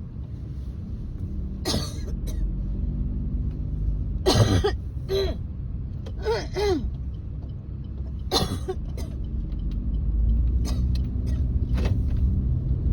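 Repeated chesty coughing and throat clearing in short separate bouts every couple of seconds, some with a hoarse voiced rasp: a cough with phlegm stuck in the throat that won't come up. A steady low rumble of a car driving runs underneath.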